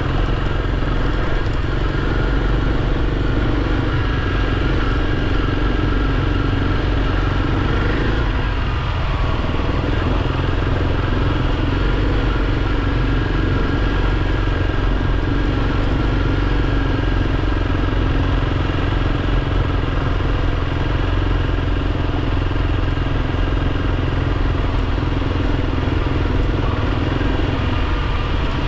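Kawasaki KLX300 dual-sport motorcycle's single-cylinder four-stroke engine running steadily under way, with a brief dip in the engine note about eight seconds in.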